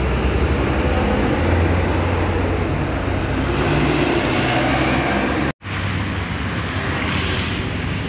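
Road traffic with coach buses driving past, a low steady engine rumble under tyre and road noise. The sound cuts out for an instant a little over halfway through.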